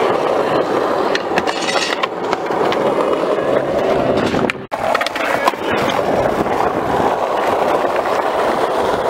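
Skateboard wheels rolling steadily over rough asphalt, with several sharp clacks of the board scattered through.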